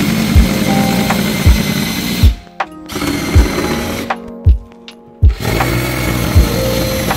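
Power drill driving screws up into the underside of a desktop, run in three bursts with short pauses between them. Background music with a steady beat plays underneath.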